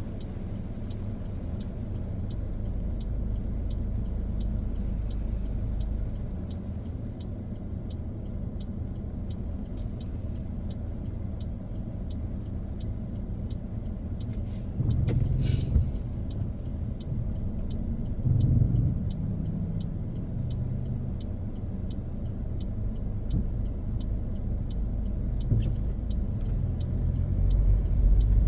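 Car driving slowly, heard from inside the cabin: a steady low road and engine rumble with a faint regular ticking about twice a second. There is a brief louder swish about halfway through, and the rumble swells near the end.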